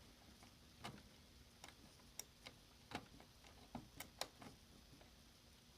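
Faint, irregular clicks from a briefcase's roller combination lock as a number wheel is turned notch by notch, being felt for its flat spot, with most of the clicks in the middle seconds.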